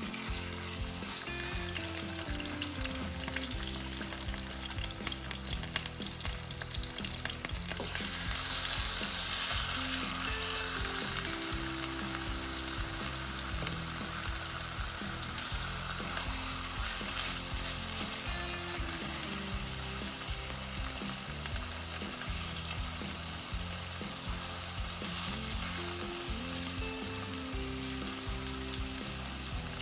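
Marinated chicken pieces sizzling as they fry in hot oil in a nonstick pan, with a spatula scraping and pushing them around at times. The sizzle gets louder about eight seconds in.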